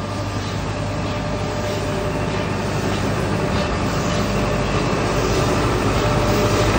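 Nilgiri Mountain Railway X-class steam locomotive approaching slowly along the platform, its running noise growing steadily louder, with a steady whine over the rumble.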